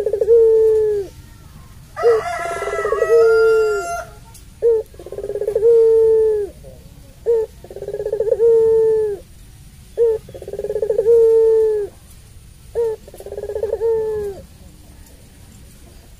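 Puter pelung dove (a long-voiced domestic ring-necked dove) cooing about six times, each coo a short note followed by a long, drawn-out note, repeating every two to three seconds. A second, higher and harsher call overlaps one coo about two seconds in.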